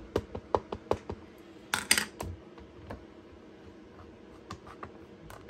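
Rapid light tapping of an ink pad being dabbed onto a rubber stamp, about six quick taps in the first second. A louder clatter about two seconds in as the stamping platform's hinged clear plate is brought down, then a few faint clicks as fingers press on it.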